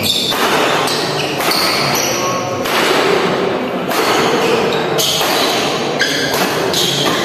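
Badminton doubles rally: rackets hitting the shuttlecock about once a second, each a sharp crack that rings in a large hall, over a steady background of crowd noise.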